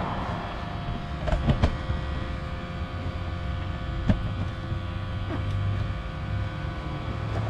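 ANCEL-S1000 evap smoke machine running during a smoke test of a car's intake, a steady low hum from its pump with a few light clicks and knocks, the loudest about four seconds in.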